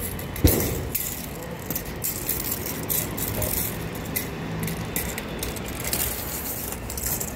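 Steel tape measure being pulled out and laid along a cardboard box, the blade rattling, with handling and rustling noise and a sharp click about half a second in.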